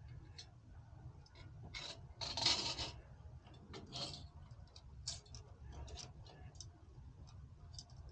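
Hand handling of PC cooler hardware: scattered light clicks and a short scraping rub about two seconds in, with a smaller one a second later, over a steady low hum.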